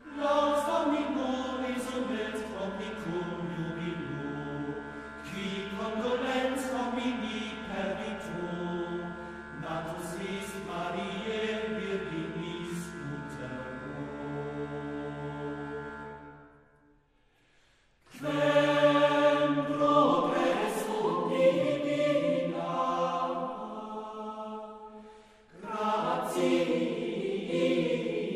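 Choral chant: several voices singing slow, sustained sacred lines over a low held drone, breaking off about 16 seconds in and pausing briefly again around 25 seconds.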